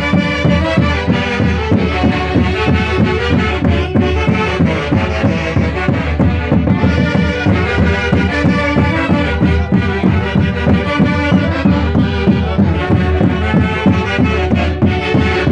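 Live Peruvian orquesta típica band playing a lively Santiago festival tune: several melody instruments together over a steady, evenly pulsing low beat.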